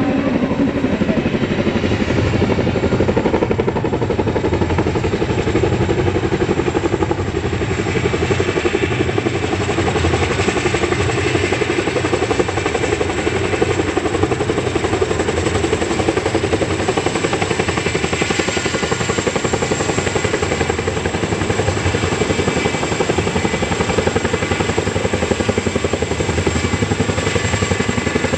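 Boeing CH-47 Chinook tandem-rotor helicopter flying low, its rotors beating in a loud, steady rapid chop with a thin high whine above it.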